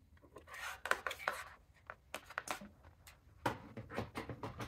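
Plug-in mains power adapter being picked up and plugged in: a brief rustling scrape, then a scatter of light plastic clicks and knocks.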